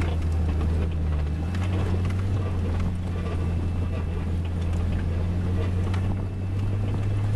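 Toyota LandCruiser 100 Series engine pulling steadily up a steep rocky hill climb, heard from inside the cabin as a low drone whose pitch rises a little about a second and a half in and again near the end. Knocks and rattles come through as the vehicle bumps over the rocks.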